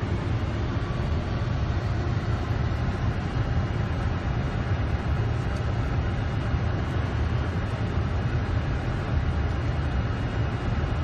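Steady flight-deck noise of a Boeing 747-400 on final approach: airflow and engine rumble, strongest in the low range.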